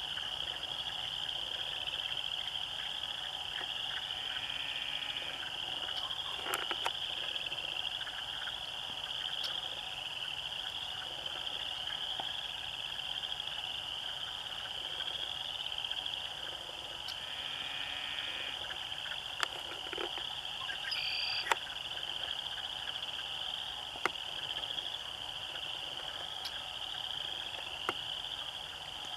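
Dense chorus of many frogs calling together as one continuous, pulsing high trill. A couple of bird calls and a few sharp clicks come through over it.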